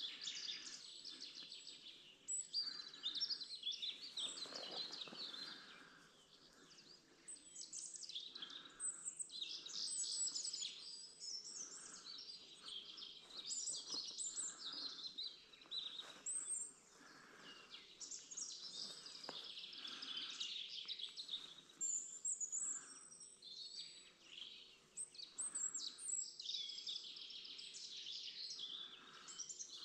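A chorus of several songbirds singing at once: many overlapping high chirps and song phrases, with no let-up.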